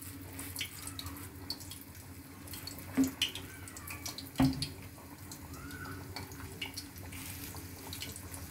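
Corn pakoda batter frying in hot oil in a steel pan: a steady sizzle with small crackling pops, broken by two sharper knocks about three and four and a half seconds in.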